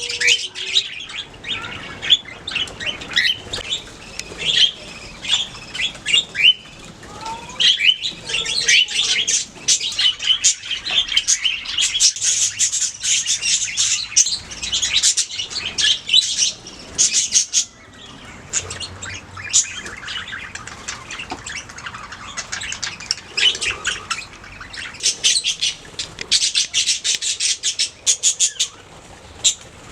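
Budgerigars chirping and warbling together in a steady, busy chatter of rapid high chirps.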